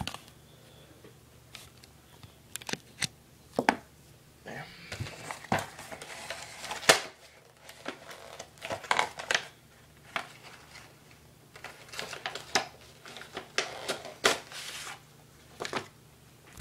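Retail packaging of a phone case being handled and pulled apart: irregular crinkling and rustling with many scattered sharp clicks and snaps.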